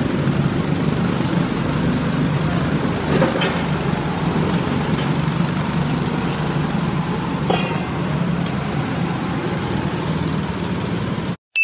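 Go-kart engines idling together in the pit lane, a steady drone; cuts off abruptly near the end.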